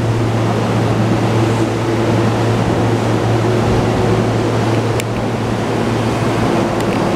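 E231-series electric commuter train standing at the platform with its doors open, giving a steady low hum and hiss from its onboard equipment and air conditioning. A faint click comes about five seconds in.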